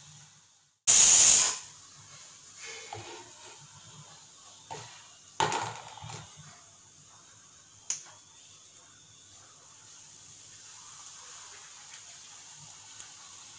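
Kitchen sounds at a gas stove with a steel kadai of oil heating: a loud, brief rush of noise about a second in, two sharp knocks near the middle, then a faint steady hiss from the burner.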